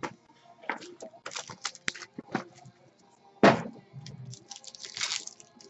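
Baseball card pack wrapper crinkling and cards clicking as they are handled, in a run of short crackly strokes. There is a sharp knock about three and a half seconds in, the loudest sound.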